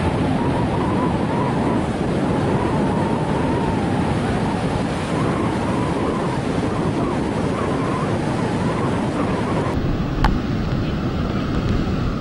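Rough sea surf breaking on a beach, with wind buffeting the microphone. A sharp click about ten seconds in.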